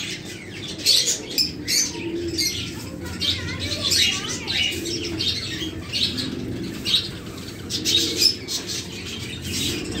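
Many caged budgerigars chirping and chattering, a dense run of short high calls, with a lower call repeating about once a second underneath.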